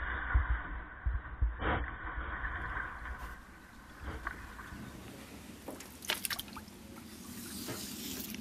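Canoe being paddled: water gurgling and trickling around the paddle and hull, with low thumps in the first couple of seconds and a few sharper splashes and clicks later on.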